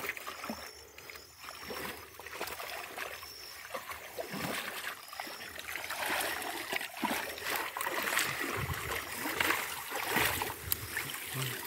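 Shallow muddy creek water splashing and sloshing as a round fishing sieve is swept through it and the weedy bank is beaten to drive small fish into it. The splashing gets louder about halfway through.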